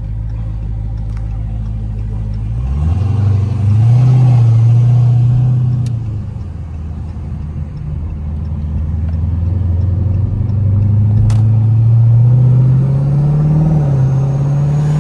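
Twin-turbocharged 5.7-litre Hemi V8 of a Dodge Charger pulling under part throttle. Its pitch rises about three seconds in, drops back near the middle and then climbs again, with a faint high whine over it towards the end.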